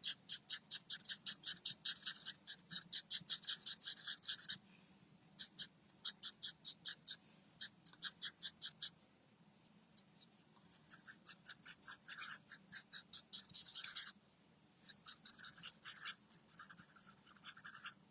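A marker scratching over cardstock in quick, short back-and-forth strokes, about seven a second. It comes in several runs with brief pauses between them, feathering the colour so that the stamped bird looks furry.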